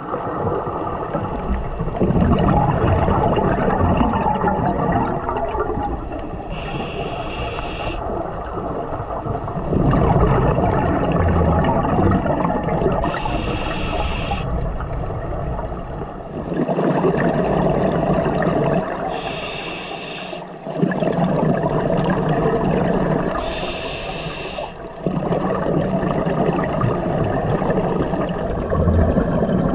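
Scuba diver breathing through a regulator underwater: a short, high hiss on each inhale, about every six seconds, each followed by several seconds of gurgling exhaust bubbles.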